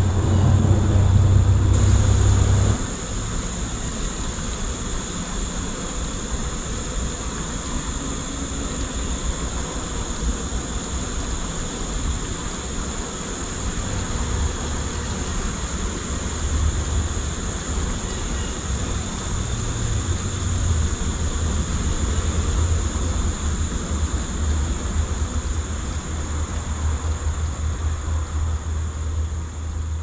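Honey bee swarm buzzing in flight: a steady low drone, louder for the first few seconds and then settling to an even level.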